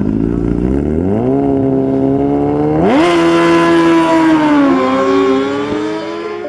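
Race car engine accelerating hard: its pitch climbs about a second in, leaps higher just before the halfway point, then slowly sinks.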